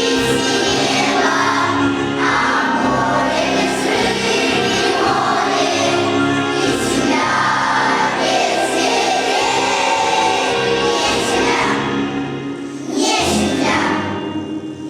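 A children's choir singing a song in unison over musical accompaniment, with a short dip in loudness between phrases near the end.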